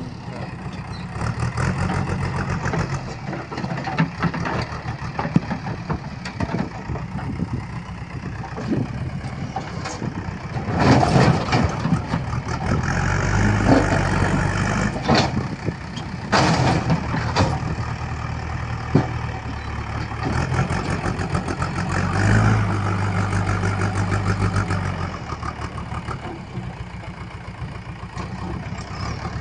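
Diesel engine of a heavy construction machine running. Its note rises and falls, and there are several sharp knocks through the middle.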